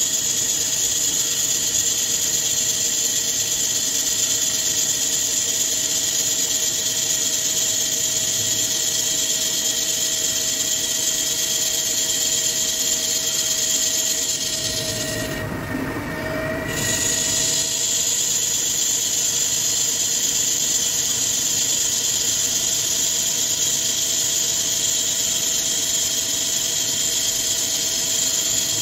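A ductile iron roll being turned on a CNC lathe under flood coolant. The cut gives a steady, high-pitched whine with a few held tones. It stops for about a second and a half near the middle, then picks up again.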